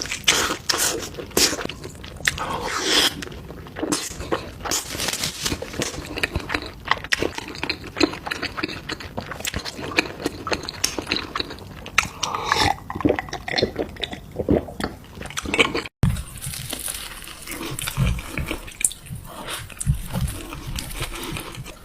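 Close-miked eating: crunchy bites and chewing, many sharp crackling clicks in quick succession. The sound breaks off for an instant about 16 seconds in, then the chewing carries on with more low thuds.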